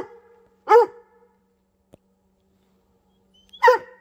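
Mountain cur barking treed at a raccoon up the tree. Three short barks: two close together at the start, then a pause of about three seconds and one more near the end.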